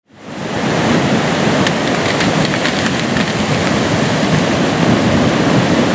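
Rushing of a river in flood: fast, churning whitewater, loud and steady, fading in over the first half second.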